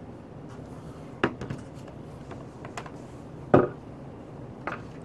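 A few sharp clicks and knocks over a steady room hum, the loudest about three and a half seconds in.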